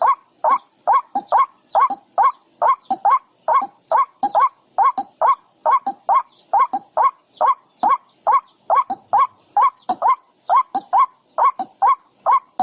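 An animal calling over and over: short harsh cries, about two or three a second, at a steady unbroken rhythm.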